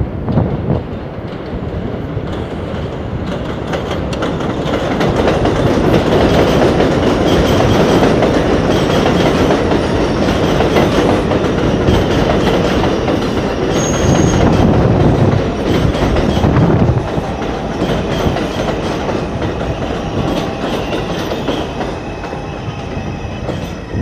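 NYC Subway 2 train of R142 cars running along the elevated steel structure past the platform, wheels clattering over the rail joints with a brief high wheel squeal. It builds as the train draws near, is loudest through the middle, and eases off toward the end.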